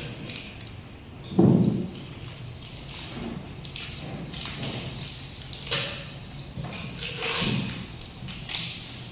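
A dull thud about a second and a half in, then scattered light taps and rustling.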